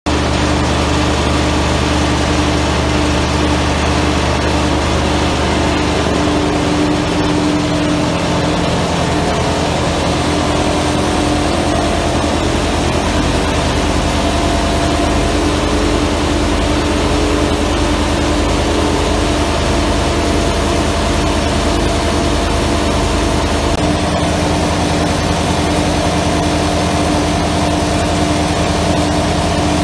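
GR 650 UC rubber band granulator running: a loud, steady machine din under a constant hum.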